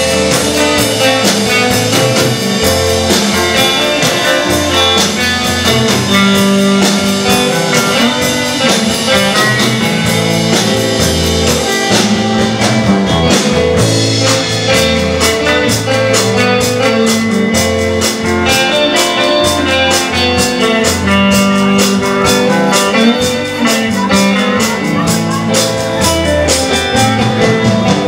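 Live band playing an instrumental passage: electric guitars over a drum kit, with a steady beat and a low bass line.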